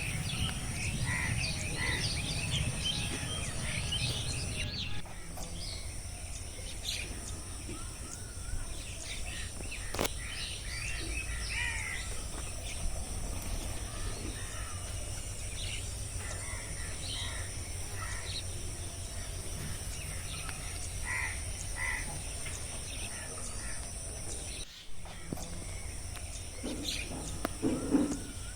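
Forest ambience: many birds chirping and calling over a steady high-pitched insect drone and a low rumble, with the whole background briefly dropping out twice, about five seconds in and near the end.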